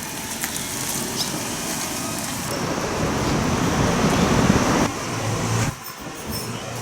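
Road traffic noise, growing louder for a couple of seconds midway and then dropping off sharply.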